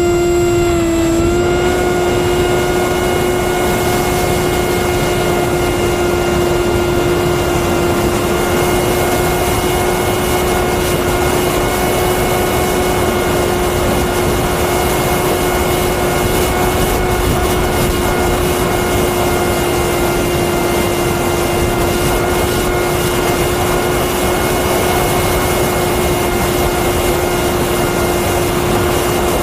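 The F80 2500 kV brushless motor and HQ 6×4.5 two-blade propeller of a small FPV flying wing in flight, giving a steady high whine at near-constant throttle, with a rushing of air over it. The pitch dips slightly about a second in and then holds.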